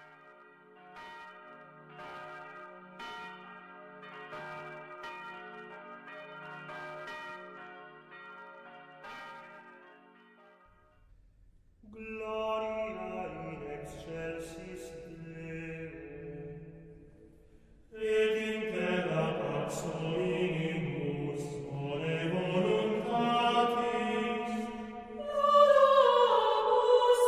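Church bells ringing, about one stroke a second, for about ten seconds. Then, from about twelve seconds in, a choir sings a chant that grows louder about six seconds later.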